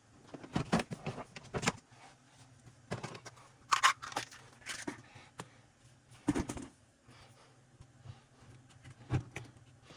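Hand tools and chainsaw parts being handled during a teardown, giving sharp clicks and knocks: a cluster in the first two seconds, then single louder knocks every couple of seconds over a faint low hum.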